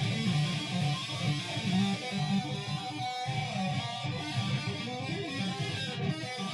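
Guitar being played, a continuous run of plucked and strummed notes.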